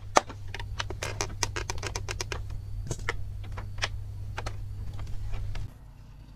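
Bamboo slats clicking and rattling under hands, a quick irregular run of sharp taps that thins out after about four seconds. A low rumble runs underneath and drops away near the end.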